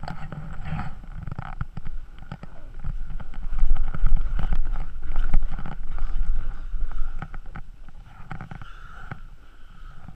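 Snowboard sliding and carving over packed, groomed snow, its edge scraping and chattering, with wind rumbling on the camera microphone as speed builds; the wind rumble is loudest through the middle stretch.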